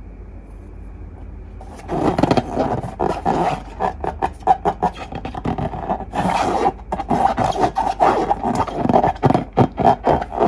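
Long rubber balloons and slime being squeezed and rubbed by hand: rapid, irregular rubbery squeaks and scrapes. They start about two seconds in, after a low hum.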